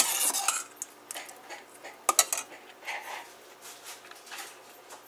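Metal ladle clinking and scraping against a stainless-steel pot of thick dalpithi stew, with several separate clinks.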